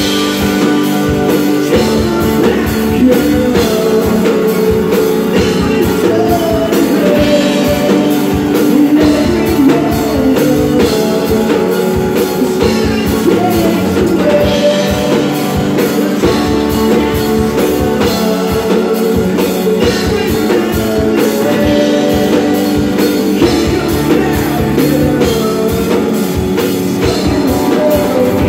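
A rock band playing live: two electric guitars over a drum kit, loud and continuous.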